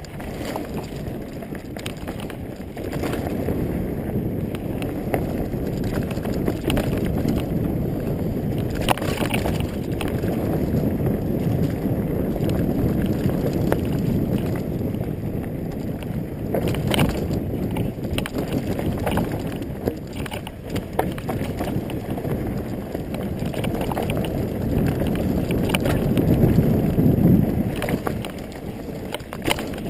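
Wind rumbling on the microphone and knobby tyres rolling over a dirt forest trail during a fast mountain-bike descent, with occasional sharp knocks and rattles from the Specialized Stumpjumper as it hits bumps. The rumble swells and eases with speed, loudest near the end.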